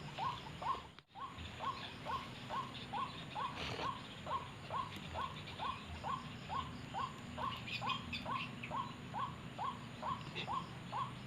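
White-breasted waterhen calling: a steady, even run of short falling notes, close to three a second, with a brief break about a second in.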